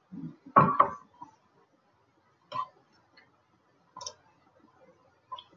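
A few single computer mouse clicks spaced well apart, with a louder double thump just before the first second.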